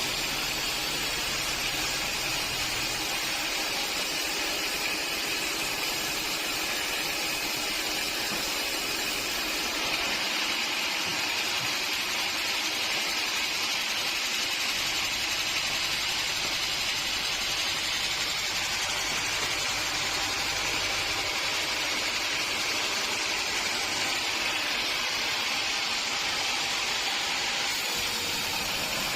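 Sawmill machinery running steadily, a constant hissing noise with no breaks or distinct strikes.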